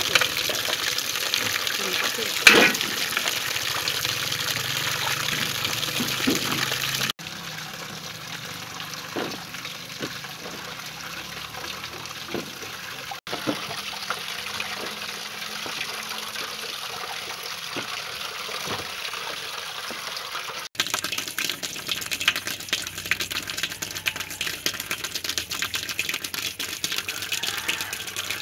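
Water sloshing and splashing as hands scrub potatoes in a metal basin, with a few knocks of potatoes against the basin. After a couple of cuts it turns quieter, and in the last third comes a fast, dense scraping as a knife and a peeler take the skin off raw potatoes.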